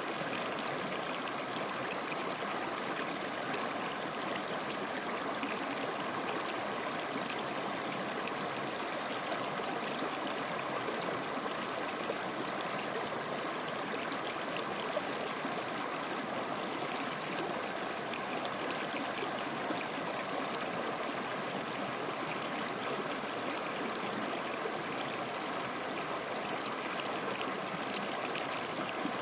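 A mountain river flowing over rocks, a steady rushing and babbling of water.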